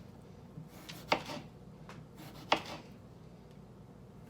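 Kitchen knife chopping vegetables on a cutting board: two distinct chops about a second and two and a half seconds in, with a fainter tap before them.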